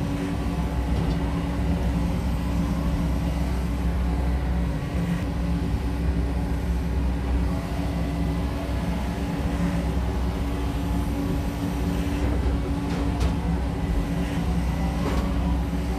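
SANY SY80U mini excavator's diesel engine running steadily as the boom and arm swing and fold in.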